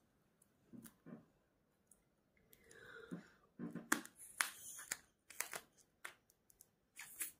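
Clear nano tape being worked between the fingers, its sticky surface crackling and clicking as it is pulled apart, with a soft breath blown into it about midway as it is inflated into a bubble; the crackling comes thicker over the last few seconds.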